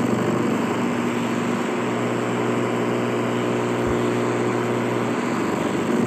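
Tivoli Audio iPAL portable radio's speaker giving out a steady hiss of static with a low hum underneath as its tuning dial is turned between stations.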